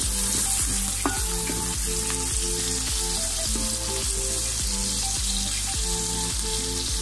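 Chopped onions sizzling in hot cooking oil in a pot as they are sautéed, stirred with a wooden spatula, with a light knock about a second in. Soft background music with held notes plays underneath.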